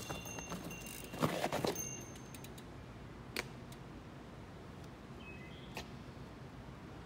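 Mountain bike clattering over rocks: a burst of rattling and knocking about a second in, followed by two single knocks a couple of seconds apart as the bike comes to a stop among the boulders.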